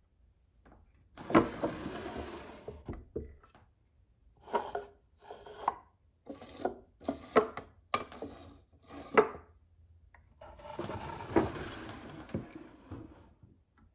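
Small wooden drawers of an apothecary cabinet sliding in and out, wood rubbing on wood. A long slide comes about a second in and another about two-thirds of the way through, with a quick run of about six shorter slides and knocks between them.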